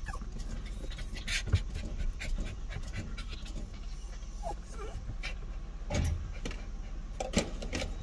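A dog panting, with a brief whimper about four and a half seconds in.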